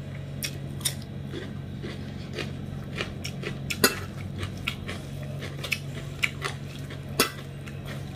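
Fingers mixing rice and curry on a stainless steel plate, with about a dozen irregular sharp clicks and taps against the metal, the loudest about four seconds in and about seven seconds in.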